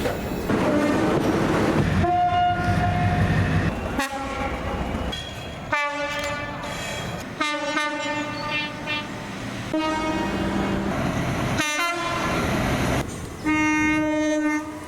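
British train horns: about half a dozen separate horn blasts from different trains, cut abruptly one after another, each a steady held note. Between and under them the trains run along the track.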